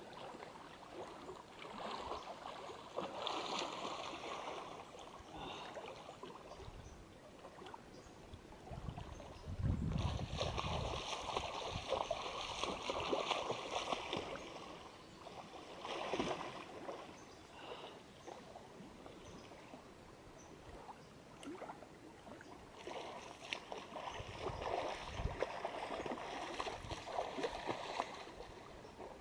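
Lake water splashing and sloshing in irregular bursts as a person wades over slippery rocks and swims, loudest about ten to fourteen seconds in.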